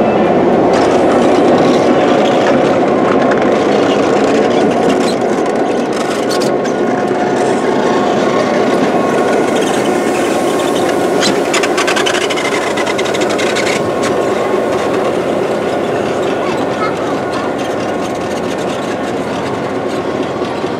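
Train passing close by: the lighted passenger cars and then the CF7 diesel locomotive roll past with a steady rumble of wheels on rail. A run of clanks and squeals from the running gear comes in the middle.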